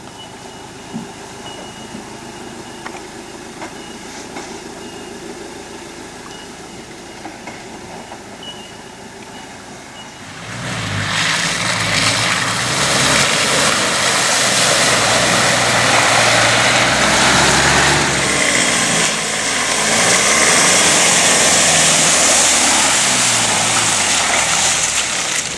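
Four-wheel-drive engines working at low speed over a rough, muddy track: first a Land Rover Defender crawling, fairly quiet, with a few clicks and knocks. About ten seconds in it turns much louder, with revs rising and falling under a loud hiss, as an 80 Series Toyota LandCruiser and then the Defender drive through close to the microphone.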